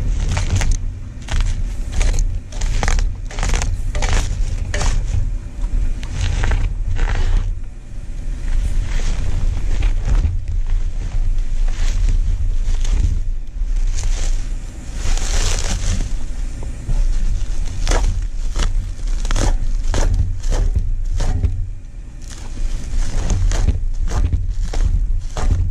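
Bubble wrap and crumpled kraft packing paper rustling and crinkling as they are pulled out of a cardboard box, in runs of quick irregular crackles over a steady low rumble.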